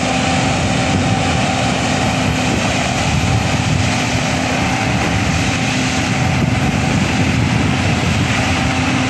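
Diesel engine of a LiuGong 4160D motor grader, a 160 hp Ashok Leyland, running steadily with a constant hum while the grader moves forward with its blade down.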